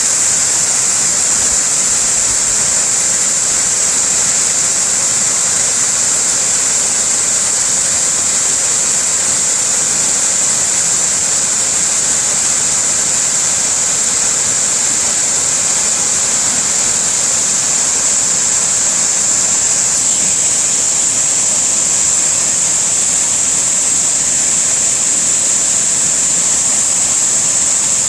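Waterfall rushing: a loud, steady roar of falling water with a strong high hiss, unchanging throughout.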